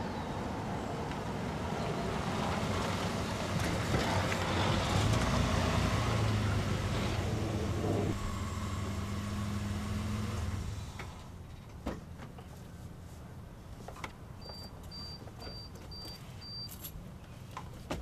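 A car engine running, growing louder over several seconds, then cutting off abruptly about eleven seconds in. A few faint clicks and knocks follow.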